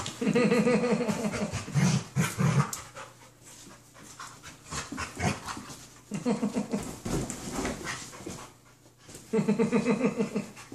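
Dogs panting hard in quick, rhythmic spells while play-wrestling, with quieter gaps between the spells.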